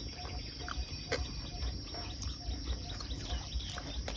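Outdoor insect chorus: a steady high-pitched insect drone with a faint short note repeating about four times a second. There are a few sharp clicks and a low rumble underneath.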